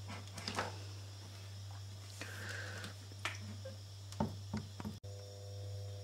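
An electric kettle and other small things being handled on a kitchen counter: a scattering of light knocks and clicks over a steady low hum.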